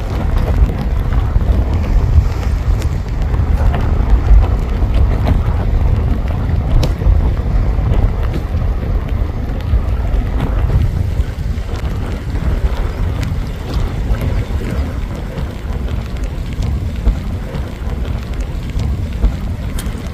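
Wind buffeting the microphone: a continuous low rumble that rises and falls with the gusts.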